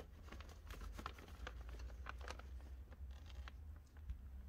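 Faint crinkling and rustling of a plastic door vapour-barrier sheet being handled, a scatter of small crackles and ticks over a low steady hum.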